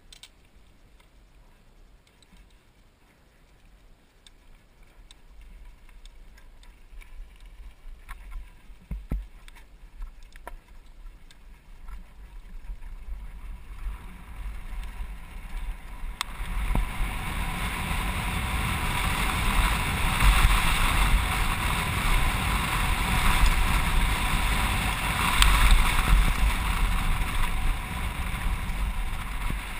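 Downhill mountain bike riding fast over a gravel and dirt track, heard from a helmet-mounted camera: tyre and trail noise mixed with wind rushing over the camera, building from quiet to loud over the first half. A few sharp clicks and knocks from the bike stand out before the rush takes over.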